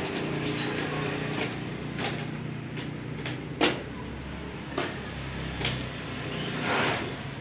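Scattered sharp clicks and taps from hand work on a sign panel, the loudest about three and a half seconds in, with a longer scraping rustle near the end, over a steady low machine hum.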